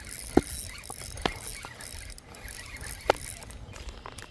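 Fishing reel giving three sharp, separate clicks over a steady background hiss while a hooked fish is being played.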